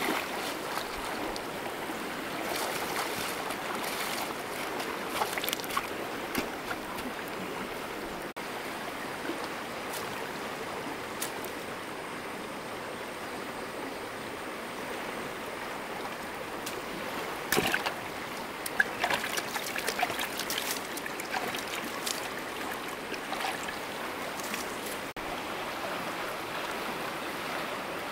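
River water flowing steadily past the bank, with a few sharp close clicks and rustles, bunched about two-thirds of the way through.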